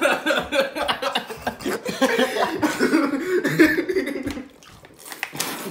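Teenagers laughing and coughing, spluttering as they chug water from plastic bottles, with a few sharp clicks near the end.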